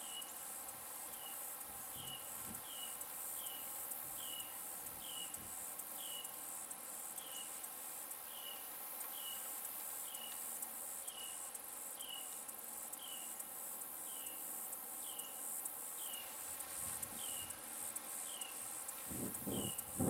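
A steady, pulsing high-pitched insect chorus, with a short chirp repeated evenly about one and a half times a second throughout. A brief louder burst of noise comes just before the end.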